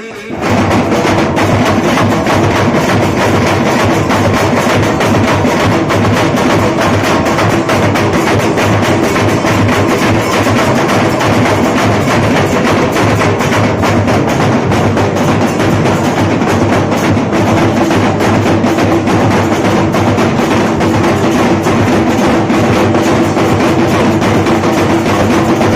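Procession drums beaten loud, fast and without a break, starting abruptly about half a second in.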